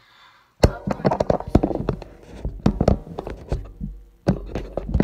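Handling noise on a phone's microphone: rubbing, knocks and low thumps as the phone is gripped and jostled by the hand holding it. It starts about half a second in and pauses briefly near four seconds in.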